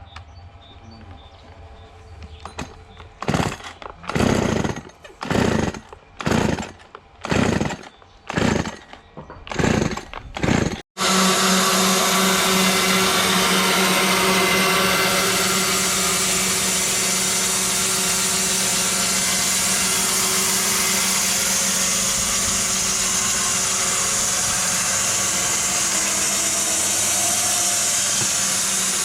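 Sawing wood: about eight even strokes, roughly one a second, then an abrupt change to a power saw running steadily with a constant low hum.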